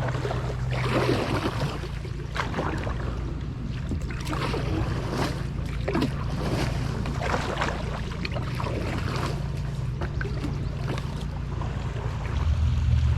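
Canoe paddle strokes splashing and dripping in the water in a repeated rhythm, about one stroke a second, over a steady low rumble.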